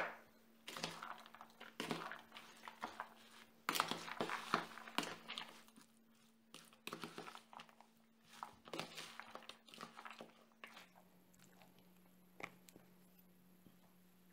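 Metal spoon stirring chopped onion, salt, pepper and raw chicken pieces in a bowl: irregular scraping and wet, crunchy squelching that stops about ten seconds in, followed by a few faint clicks.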